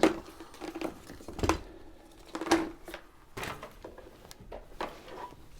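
Handling noises as the power cord is plugged into a sewing machine: a few separate clicks and knocks with some rustling. The sharpest click comes about two and a half seconds in.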